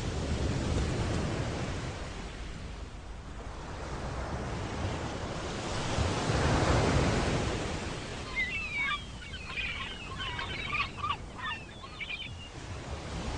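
Sea surf washing in and breaking on rocks, with wind; one wave surges loudest about halfway through. In the second half, gulls give a run of short calls over the surf.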